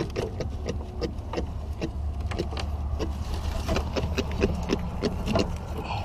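Spinning reel being cranked fast to bring in a hooked jack crevalle, ticking about four times a second over a steady low rumble.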